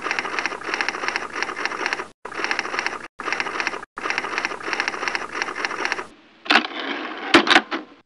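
Rapid mechanical clattering, an even run of fast clicks broken by a few sudden short dropouts, then a few louder separate clicks near the end.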